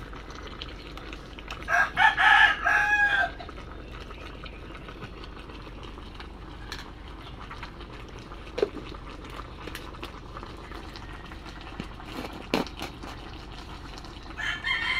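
A rooster crowing, one loud crow of about a second and a half starting about two seconds in and another beginning near the end, with a few faint clicks in between.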